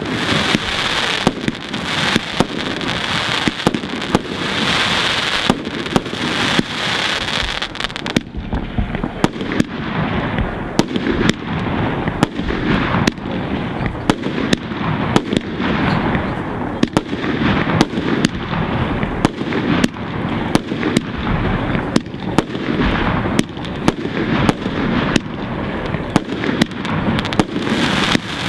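Fireworks display firing without pause: many sharp bangs of aerial shells launching and bursting, over a dense rushing noise that thins after about eight seconds, leaving the separate bangs standing out.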